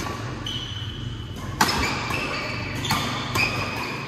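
Badminton doubles rally: rackets strike the shuttlecock in sharp cracks, the loudest about one and a half seconds in and two more near the end. Short high squeaks from players' shoes on the court mat come between the hits, over a steady low hum.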